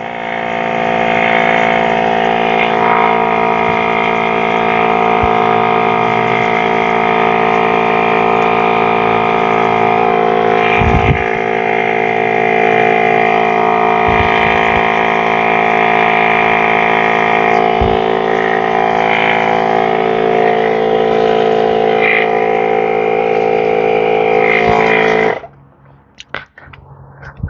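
Electric air compressor running steadily with a constant motor hum, cutting off abruptly near the end.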